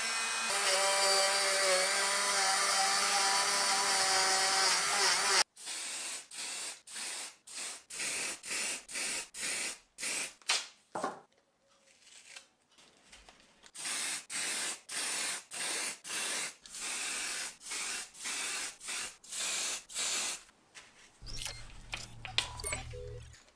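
A small power tool runs with a steady whine and cuts off abruptly about five seconds in. Then come two runs of short, even rasping strokes, about two a second, like hand sanding or filing, with a low hum near the end.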